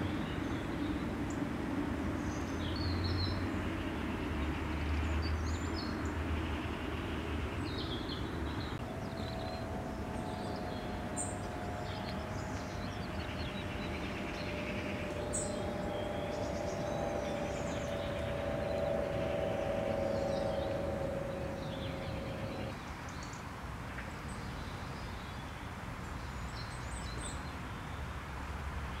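Outdoor ambience: a steady rumble of distant traffic with small birds chirping now and then. From about nine seconds in, a steady hum sits over it for around thirteen seconds and then stops suddenly.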